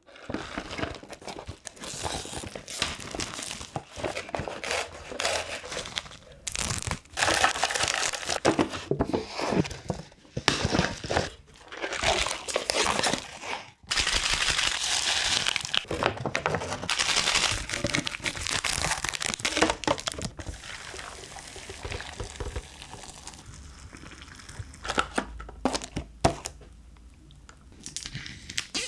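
Plastic and foil packaging crinkling and tearing as instant cup noodles are unwrapped: cup lids peeled back and seasoning sachets torn open. The handling comes in louder bursts through the middle and goes softer near the end.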